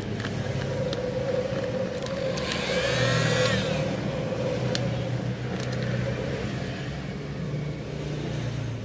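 Steady motor-vehicle hum, with an engine sound that rises and falls in pitch about three seconds in, and a few light clicks.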